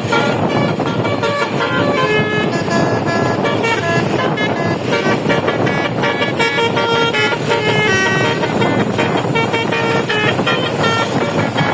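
A bus's Basuri telolet multi-tone horn playing a quick melody, its notes changing every fraction of a second, over a constant noisy background.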